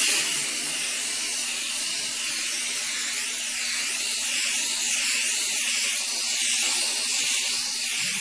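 Aerosol can of mirror-effect spray paint hissing steadily as it is swept back and forth over a glass pane, the hiss wavering slightly with each pass and breaking off briefly near the end.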